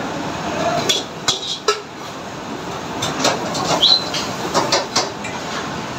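Steady roar of commercial gas burners and the extraction hood, with metal utensils clinking and knocking against steel pots and pans several times, and a brief high squeak about four seconds in.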